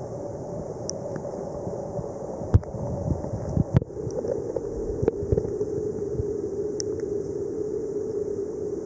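Underwater sound: a steady low hum with a few sharp clicks, the two loudest about two and a half and four seconds in.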